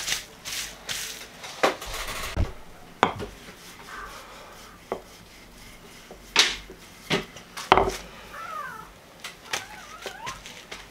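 Kitchen-counter handling noise: a plastic bag rustling near the start, then scattered sharp knocks and taps as a wooden rolling pin and rolled dough discs are moved about on the counter.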